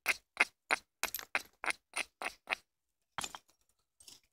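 Edge of a flint handaxe being abraded: quick, rasping scrapes of stone rubbed along the thin flint edge, about three or four strokes a second, then a pause and one longer stroke near the end. The grinding dulls and strengthens the edge as a striking platform before flakes are knocked off with an antler billet.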